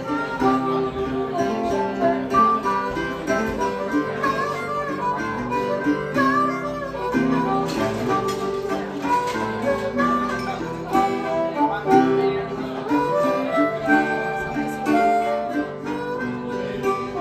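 A live band playing an instrumental break, with guitar to the fore.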